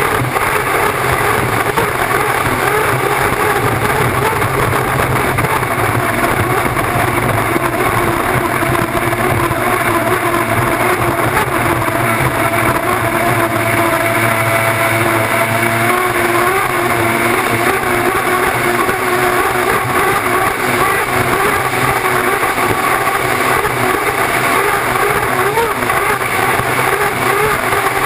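Unlimited hydroplane's Lycoming T55 turbine engine running at racing speed, heard from an onboard camera together with the rush of wind and water. The drone is loud and steady, with whining tones that waver slightly in pitch.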